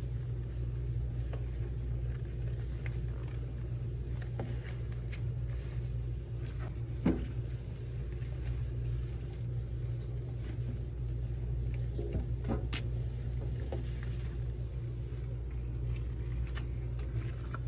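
Microfiber towel wiping the inside of a microwave: faint rubbing and a few light knocks, the clearest about seven seconds in. A steady low hum runs underneath.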